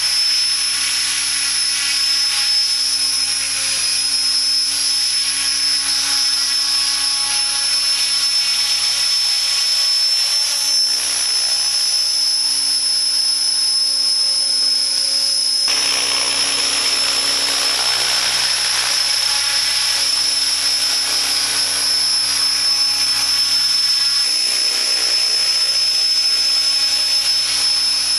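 Align T-Rex 600 ESP electric RC helicopter: a steady high-pitched motor whine over rotor noise while it hovers, sets down and lifts off. The rotor noise grows fuller about halfway through.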